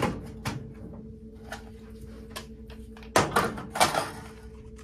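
Rifle magazines knocking against a steel gun safe as they are set into its magazine cradles: a few light knocks, then a louder cluster of clunks about three seconds in.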